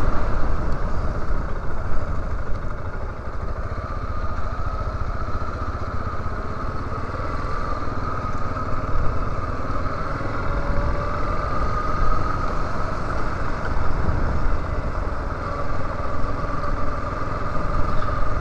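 Yamaha Lander 250 trail motorcycle's single-cylinder engine running under way at low speed, its note drifting slowly up and down with the throttle, under a steady rumble of wind on the helmet-mounted microphone.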